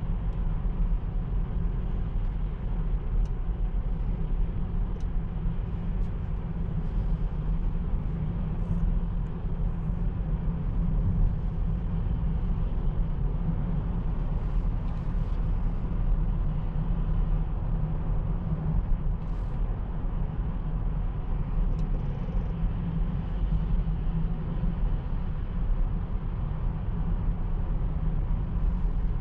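Steady tyre and road rumble with wind noise inside the cabin of a Mercedes EQE SUV, a battery-electric car, cruising with no engine sound. There is a faint steady high hum underneath.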